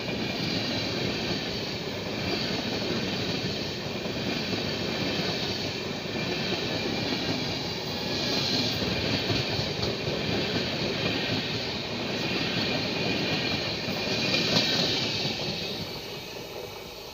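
Passenger train coaches rolling past close by: steady wheel-on-rail rumble and track noise, with a hissing swell about every three seconds as each coach goes by. The sound fades about fifteen seconds in as the last coach passes and moves away.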